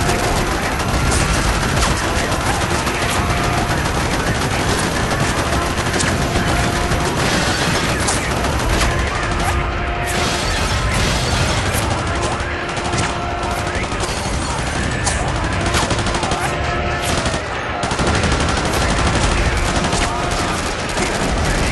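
Battle sound effects: dense, continuous gunfire with overlapping machine-gun bursts and single shots, with no pause. A short held tone recurs every two or three seconds behind the shooting.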